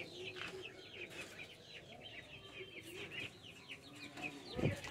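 Chickens clucking softly, with many quick high chirps through it. A brief low bump near the end.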